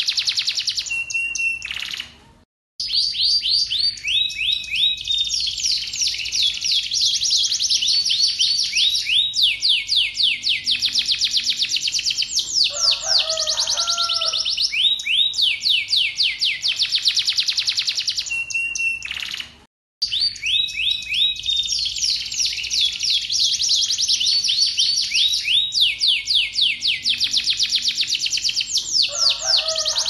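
Domestic canary singing a long, fast song of rapid repeated trills and rolls, high-pitched and continuous. The song breaks off briefly twice, about two seconds in and again about twenty seconds in, then resumes. A short lower-pitched warble sounds about thirteen seconds in.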